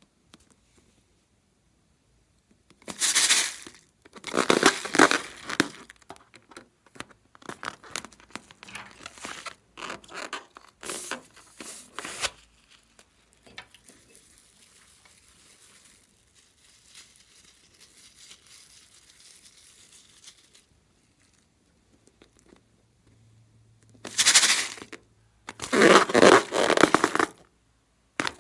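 Slime being squished, pressed and stretched by hand, giving bursts of many small sticky clicks and pops with quiet pauses between them. The loudest bursts come near the start and near the end.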